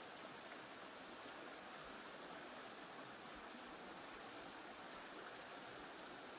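Faint, steady rush of a stream running over rocks.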